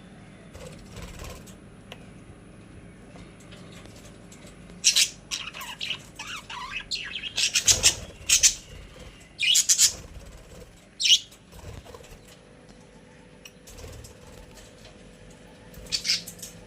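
Pet budgies chirping in short, sharp, high-pitched calls. The calls come in a busy cluster from about five seconds in and again briefly near the end.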